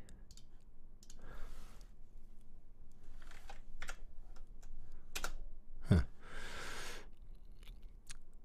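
Computer keyboard keystrokes and mouse clicks, scattered and irregular, with one louder knock about six seconds in.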